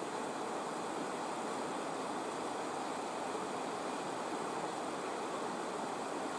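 Mountain river rushing over rocks in shallow rapids: a steady rush of water.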